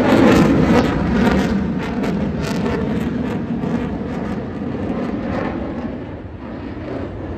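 Fighter jet flying past at an airshow, its engine noise loud at first and slowly fading as it moves away.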